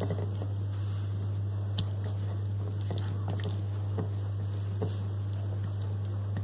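Soft wet squelching and small irregular clicks of a hand rubbing raw chicken drumsticks in an oily spice marinade in a glass bowl, over a steady low hum.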